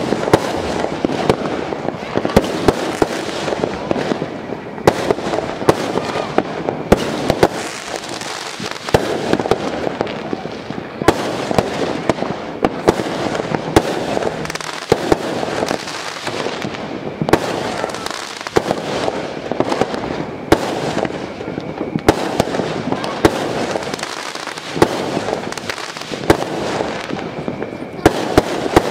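Fireworks going off continuously, a dense run of sharp bangs and crackles one after another, with a few louder reports standing out.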